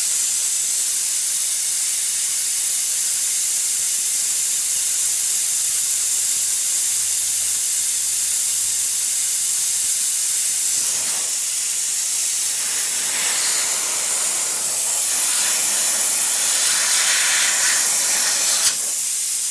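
Compressed air hissing steadily out of a 5-gallon Husky air compressor's tank, bleeding the pressure down so the new pressure switch will cut the motor back on. There is a brief click near the end.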